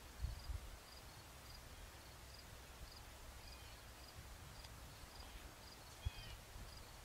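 Faint outdoor ambience of a cricket chirping in short, high, regular pulses about twice a second, with a few low thumps near the start and again about six seconds in.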